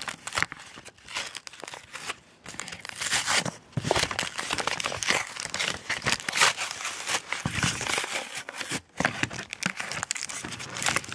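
A trading card blister pack being torn open by hand: irregular crinkling of the packaging and tearing of its card backing.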